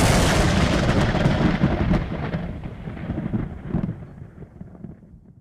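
A thunderclap: a sudden sharp crack that rumbles on, with a few more crackles, and slowly dies away.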